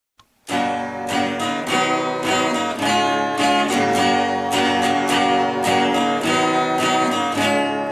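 Instrumental intro of a song: acoustic guitar strummed in a steady rhythm, starting about half a second in.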